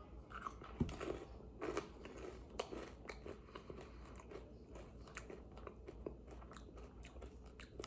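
A person chewing Buc-ee's Beaver Nuggets, caramel-coated corn puffs, with faint, irregular crunches.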